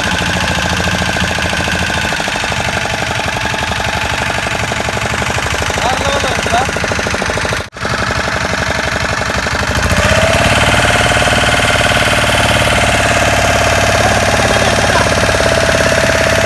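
An engine running steadily with a fast, even pulsing beat. It gets louder about ten seconds in, with a steady whine joining.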